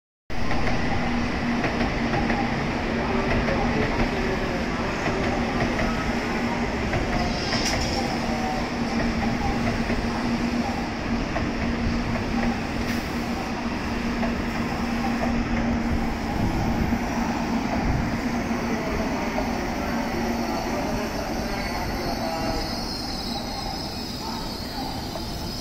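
Train moving through the station: a steady rumble of wheels on rails with a steady low hum, easing off slightly near the end.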